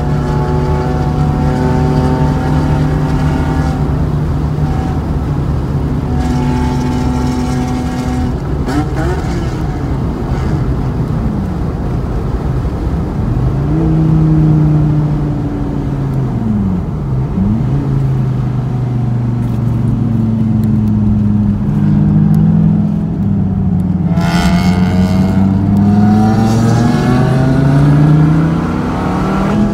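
Dodge Viper's V10 engine on a track lap, heard from on board: it holds high revs, falls sharply in pitch twice around the middle as the car slows, then climbs back up under acceleration with a gear change near the end.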